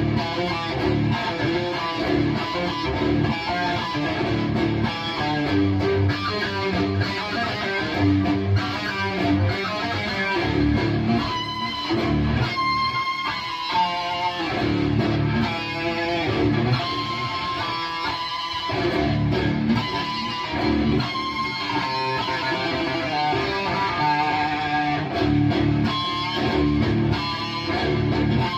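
High-gain distorted electric guitar played through a Bogner Uberschall preamp: heavy metal riffing with palm-muted chugs.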